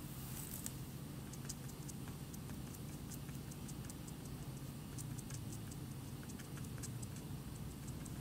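Fine felt-tip marker dabbing on paper: soft, irregular ticks as the tip taps down again and again, over a steady low hum.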